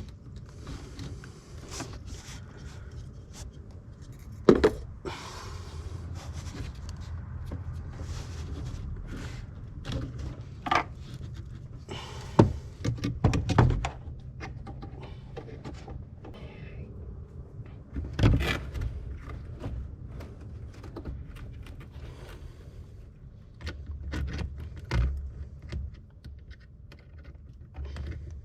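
Intermittent clinks, knocks and scrapes of hand tools and parts being handled during a thermostat swap on a Jeep Wrangler engine, over a low steady hum.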